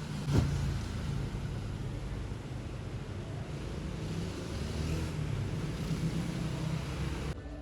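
Steady rumble of a car and its road noise, with one sharp thump about half a second in.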